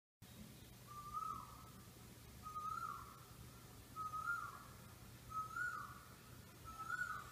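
A cat's congested nose whistling with each breath: a short, thin whistle that rises then falls, repeating about every second and a half, five times. The whistle comes from snot partly blocking the nostrils.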